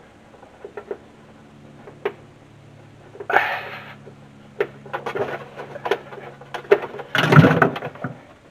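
Handling noise of a wire being worked through a car's firewall: scattered light clicks and knocks, with two scraping, rustling bursts about three seconds in and near the end, the second the loudest, over a faint steady hum.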